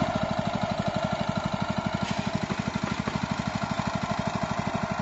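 Small engine of a portable water pump idling steadily, an even chugging beat of about a dozen pulses a second.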